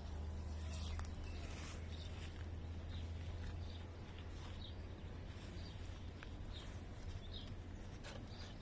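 Faint short bird chirps scattered over a steady low hum, with a few small clicks.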